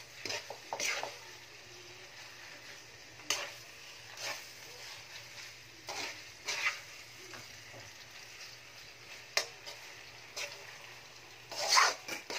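Metal spatula scraping and knocking against a metal wok as spaghetti is tossed with Spanish sardines, in irregular strokes a second or more apart over a faint steady sizzle. The loudest scrapes come near the end.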